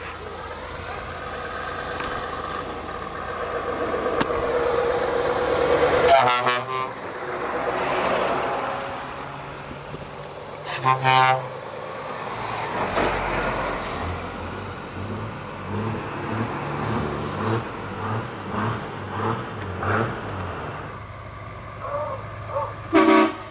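Scania show trucks driving past, engine sound building over the first few seconds. There are loud air horn blasts about six seconds in, around eleven seconds and near the end. Between them comes a run of short, evenly spaced engine pulses.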